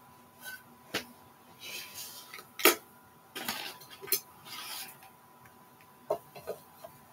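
Handling noises from a glass jar being picked up and knocked: a few sharp clicks and knocks, the loudest near the middle, between short spells of fabric rustling.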